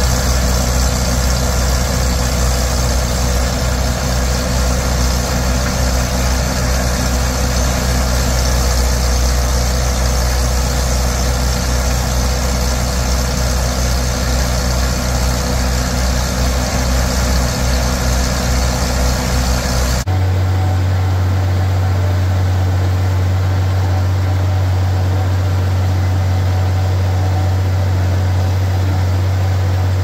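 Case 830 tractor running a Gehl silo blower, with the International 1066 driving a chopper box that feeds chopped corn into it: a loud, steady machinery drone. About 20 seconds in it cuts to a steady tractor engine drone heard from inside the cab of the International 1256 chopping corn in the field.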